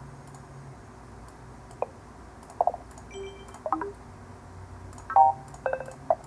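A string of short computer alert beeps and chimes, about seven brief tones one after another, the loudest about five seconds in. They are typical of macOS alert sounds being played to test the laptop's audio output.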